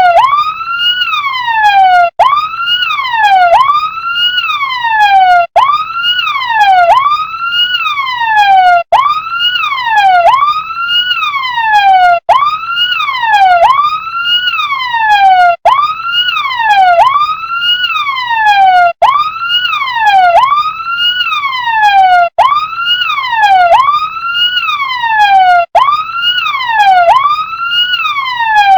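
Electronic siren of a toy RC fire truck, its pitch sweeping quickly up and sliding back down about once a second, over and over, with a brief gap about every three and a half seconds.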